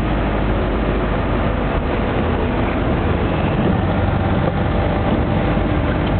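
Car driving, heard from inside the cabin: a steady rumble of engine and road noise.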